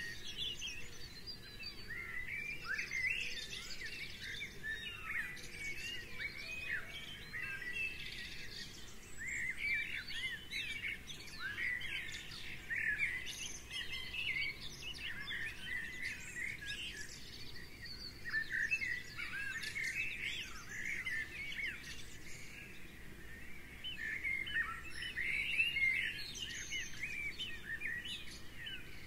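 Small songbirds chirping and singing together, many quick, high, overlapping calls.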